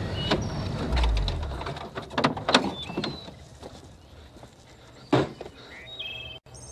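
A dull low thump about a second in, then several sharp knocks, the clatter around an off-road vehicle after a minor collision, with small birds chirping.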